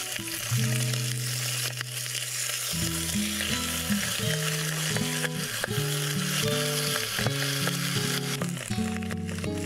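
Ham slices sizzling in a frying pan over a gas camp stove: a steady hiss of frying. Background music plays over it, a melody of low held notes that change every half second or so and are louder than the sizzle.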